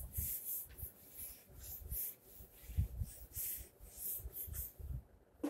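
Whiteboard eraser wiping across a whiteboard in quick back-and-forth strokes, a soft scrubbing swish about two or three times a second that stops near the end.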